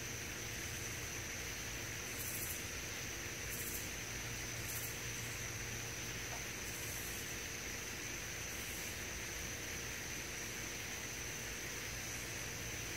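Night-time outdoor ambience of insects: a steady high-pitched drone with about five short bursts of higher chirping, over a constant low hiss and hum.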